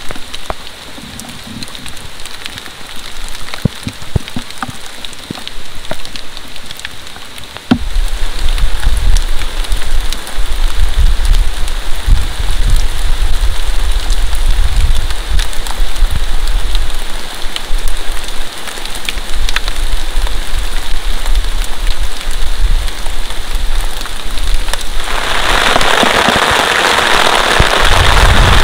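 Steady rain falling, with single drops ticking close by. About a quarter of the way in a strong low rumble sets in and carries on. Near the end the rain gets much louder as it falls on a plastic tarp.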